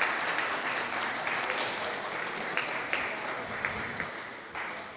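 An audience clapping, a dense patter of many hands, dying away near the end.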